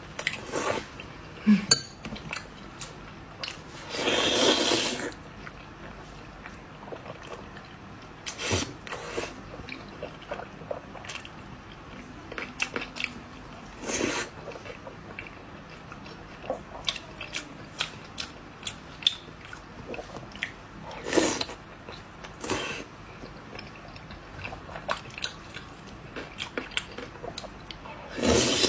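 A person eating quickly right at the microphone: chewing and biting with scattered crunches, clicks and short noisy bursts, one longer burst about four seconds in.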